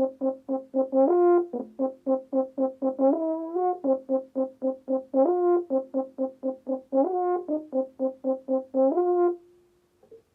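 Trombone playing a fast run of short, detached repeated notes, about five a second, broken every second or two by a longer held note that steps up in pitch. The playing stops shortly before the end.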